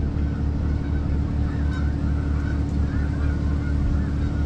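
Tractor engine running steadily with a deep, unbroken hum, with higher wavering honk-like tones over it.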